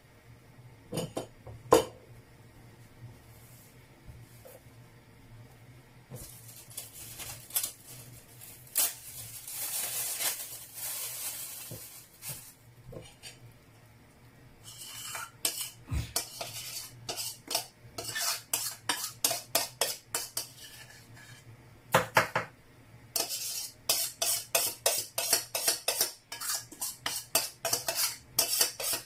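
A spoon clinking and scraping against a bowl, with scattered knocks early on, a rustling, scraping stretch, then quick rhythmic strokes of about three or four a second in the second half, as in stirring or mixing.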